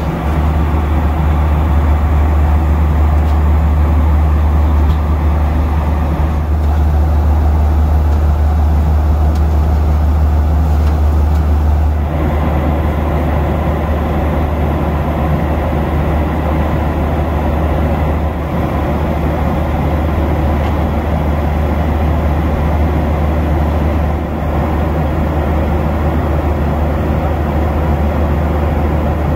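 Boeing 737-800 cabin noise at cruise: a steady rumble of airflow and engines, with a slight shift in tone about twelve seconds in.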